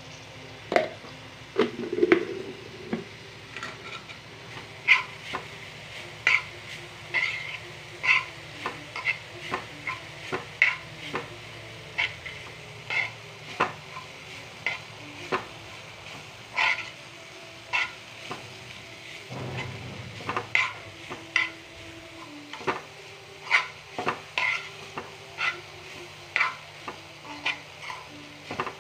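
A spoon stirring grated coconut roasting in a pan with a little oil. It scrapes and clicks against the pan one or two times a second, unevenly spaced, over a light sizzle.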